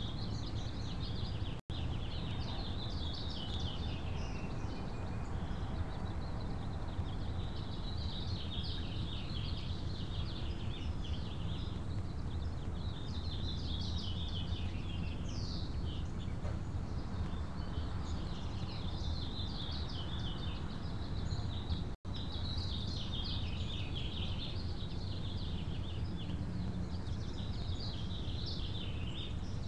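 Small songbirds chirping and twittering almost without pause over a steady low rumble of outdoor background noise. The sound drops out for an instant twice.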